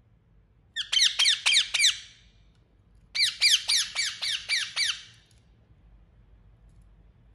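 Indian ringneck parakeet calling: two bursts of rapid, high-pitched squawks, each note sweeping downward in pitch, about five notes a second. The second burst is longer than the first and comes about a second after it ends.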